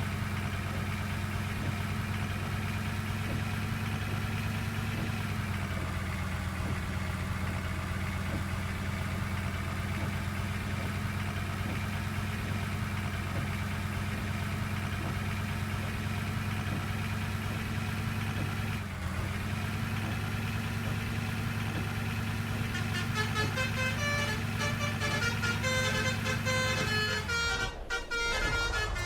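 A bus engine runs steadily at idle. In the last few seconds a 'telolet basuri' multi-tone musical horn plays a quick run of stepping notes over it.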